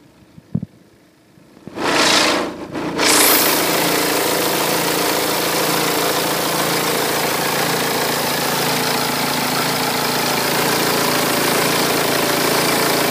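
2008 BMW 118d's four-cylinder diesel engine being started: a click about half a second in, a second or so of cranking, then the engine catches and settles into a steady idle.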